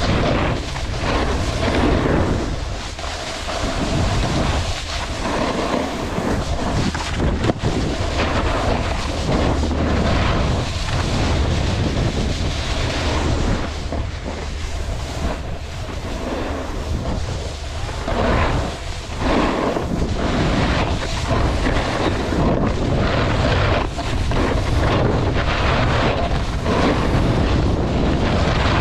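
Wind rushing over the action camera's microphone as a snowboard slides down a groomed piste, its base and edges scraping over packed, chopped-up snow. The noise swells and eases every second or two.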